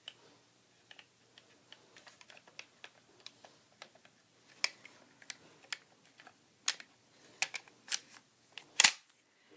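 Irregular small metallic clicks and taps of a Remington 870 Wingmaster pump shotgun's parts being worked by hand while pressing its internal buttons to reassemble it. The clicks grow louder and more frequent in the second half, with the loudest one close to nine seconds in as the part slips into place.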